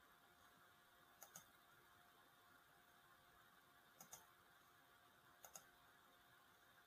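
Faint clicks of a computer mouse, three quick pairs spread a few seconds apart, over near-silent room tone.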